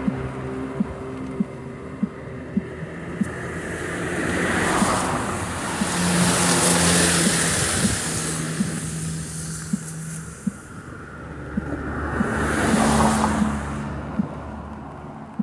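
Motor vehicles passing one after another on a wet road. Their tyres hiss on the wet asphalt over a low engine hum, swelling three times as each goes by, the middle one a small flatbed truck. Footsteps at a steady walking pace tap underneath.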